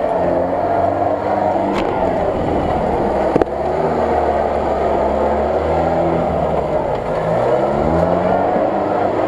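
UAZ-469 off-road vehicle's engine running under load as it crawls over rough ground, its revs rising and falling repeatedly. A sharp knock is heard about three and a half seconds in.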